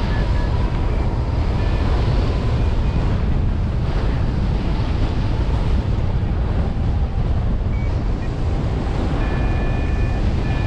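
Steady rush of airflow over the microphone on a hang glider in flight, with a few short high steady tones, most clearly near the end.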